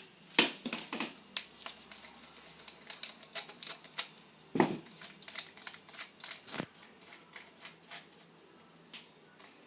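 Irregular small clicks and ticks from unscrewing the screw that holds a fishing reel's handle, with a few sharper knocks among them.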